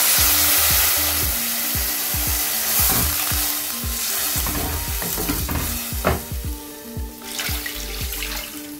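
Milk poured into a hot pan of ghee-roasted vermicelli, sizzling and hissing loudly at first, then slowly dying down.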